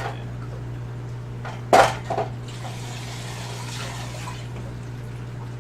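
Water splashing and trickling in an aquarium sump, over a steady low hum. A short loud knock comes about two seconds in, then a few seconds of rushing water.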